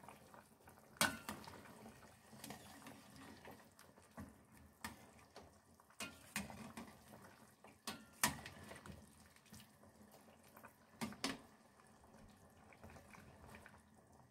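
Pork broth bubbling and sloshing in a stainless steel pot as a metal ladle stirs it. The ladle knocks sharply against the pot about four times.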